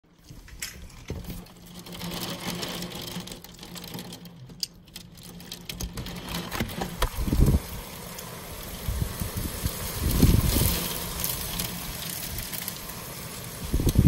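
Heavy wind gusting outside, heard from indoors through a window as low rumbling surges, strongest about seven and ten seconds in. A steady low hum runs through the first half.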